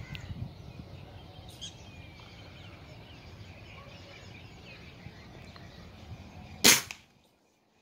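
A single air rifle shot from a Cometa Fusion airgun, one short sharp crack near the end, over faint outdoor background with a few distant bird calls.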